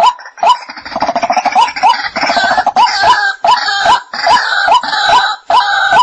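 White-breasted waterhen calling loudly. It gives a string of evenly repeated 'kook' notes, about two a second. About half a second in these thicken into a denser run of harsh croaks and grunts, with the repeated notes carrying on through it.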